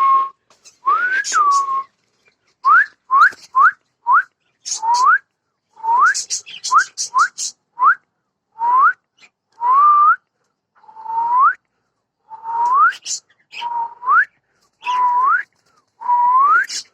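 Whistling: a long series of short whistled notes, each sliding upward, over a dozen in all. The later notes are longer, holding briefly before they rise.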